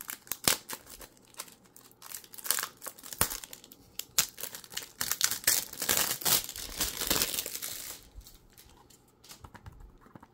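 Plastic shrink wrap being picked at, torn open and peeled off a Blu-ray case: sharp crackling and crinkling, thickest in a long tearing stretch a little past halfway, dying down to a few light ticks for the last two seconds.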